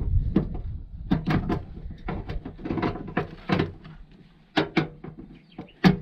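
Irregular knocks, clicks and rattles of metal and plastic parts being handled inside a front-load washer-dryer's cabinet as its wiring harness is unhooked, with one sharper, louder knock near the end.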